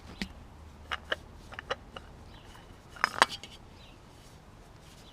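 A run of light metallic clinks and knocks from tools and parts being handled during work on the truck, loudest as two quick knocks about three seconds in.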